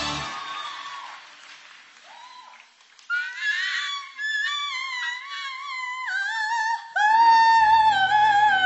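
A song's music fades out over the first couple of seconds. About three seconds in, a very high sung melody enters, holding long notes with slides between them, and a low bass joins near the end.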